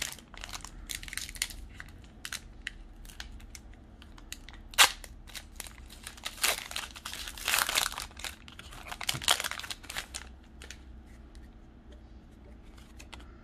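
Foil wrapper of a Pokémon trading-card booster pack crinkling and tearing as it is pulled open by hand, in irregular crackles, loudest about five seconds in and again around seven to eight seconds. It goes quiet in the last few seconds as the stack of cards is handled.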